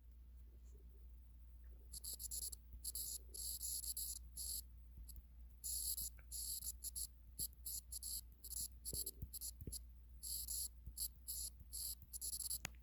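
Faint pen scratching on paper: a run of short, irregular writing strokes, starting about two seconds in.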